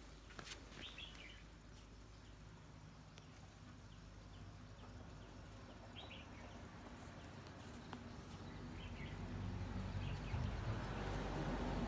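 Quiet rural outdoor ambience with a few brief, high bird chirps, and a louder rustling near the end.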